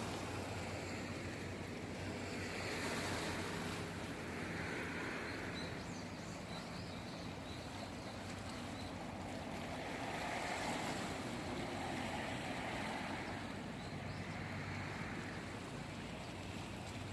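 Sea waves washing in, the surf swelling and easing every few seconds. Under it a low steady hum fades out about halfway and returns near the end.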